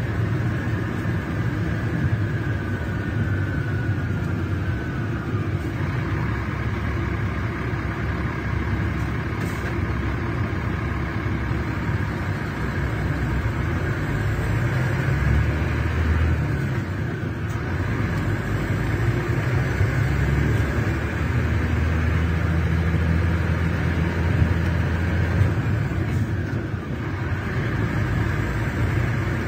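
Scania K380 coach's DC12 inline-six diesel running steadily, its low engine note shifting a few times. A faint whine falls in pitch over the first few seconds.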